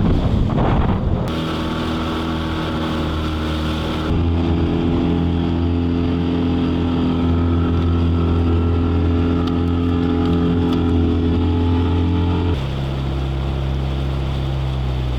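Outboard motor of a small boat running steadily underway, with wind rushing over the microphone at first. The engine note holds steady but jumps to a new pitch about a second in, again at about four seconds and near the end.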